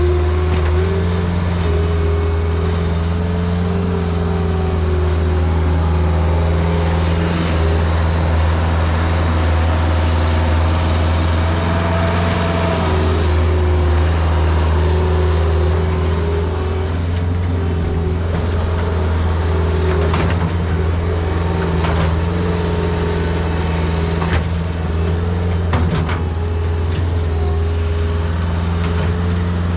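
New Holland L553 skid steer loader's engine running steadily under working load, its pitch wavering slightly as the machine digs, with a few short clanks in the second half.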